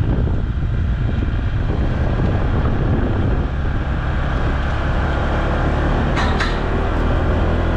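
Honda ADV150 scooter's single-cylinder engine running steadily while riding, with wind and road noise rushing over the mount. Two brief ticks come a little past six seconds.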